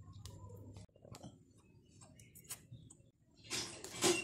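Faint, scattered small snaps and clicks of gongura (roselle) leaves being plucked from their stems and dropped into a steel colander, with a louder rustle of leaves being handled near the end.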